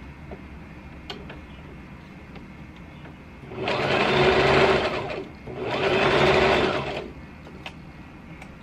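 Electric sewing machine stitching fabric in two short runs of about a second and a half each, separated by a brief stop, beginning about three and a half seconds in. A few light clicks come before, as the fabric is handled.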